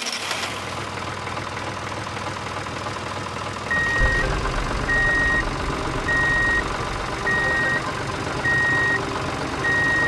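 Steady engine sound of a DIY mini model tractor running. From about four seconds in, a reversing alarm beeps six times at one pitch, each beep about half a second long and roughly 1.2 seconds apart.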